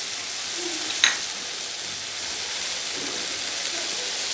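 Baingan bharta mixture of mashed eggplant, tomato and spices sizzling steadily in oil in a kadhai, with one sharp metallic clink about a second in.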